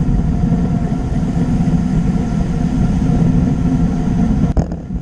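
Steady rush of wind buffeting a bike-mounted camera's microphone, mixed with tyre noise from a road bike riding at speed. A single sharp knock about four and a half seconds in, with the level dipping briefly after it.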